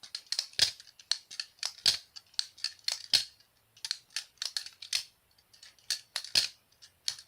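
Jerry Hom G10 Basilisk balisong being flipped: a continuous run of light, sharp clicks, about three a second, as the tang pins strike the G10 handles. The owner finds the click quiet, cheap and plasticky, and blames the tang pins hitting G10 rather than zen pins.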